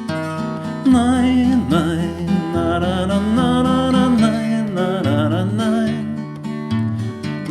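Acoustic guitar music with no words: an instrumental break in the song. Low bass notes change every second or so, and from about a second in a lead melody with a wavering vibrato plays over them.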